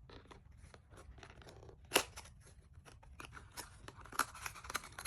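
Perfume packaging being opened by hand: a run of crackles, clicks and tearing, with one sharp snap about two seconds in and denser crackling near the end.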